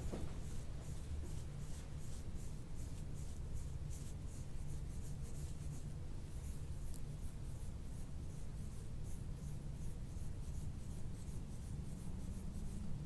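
Hands rubbing over the patient's body in quick, repeated brushing strokes during soft-tissue massage, over a steady low hum.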